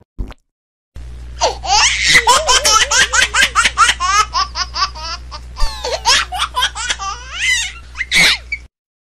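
High-pitched laughter, a long run of quick ha-ha-ha pulses over a steady low hum, starting about a second in and cutting off abruptly near the end, like a laugh sound effect edited over the clip.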